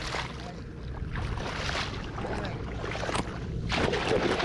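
Wading through shallow flooded rice-paddy water: irregular splashing and sloshing strokes, the loudest near the end, with wind rumbling on the microphone.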